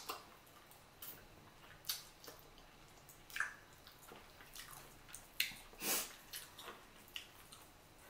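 Close-miked wet eating sounds from a person eating boiled chicken wing by hand: scattered lip smacks, sucking and sticky clicks as she chews and sucks her fingers, the loudest around five and a half to six seconds in.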